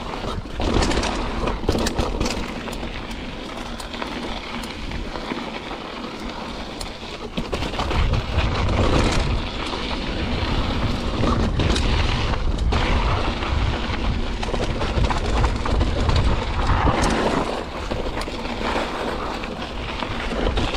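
Mountain bike riding down a trail: rolling tyre noise with scattered knocks and rattles as the bike goes over bumps, and wind buffeting the microphone, heavier from about eight seconds in.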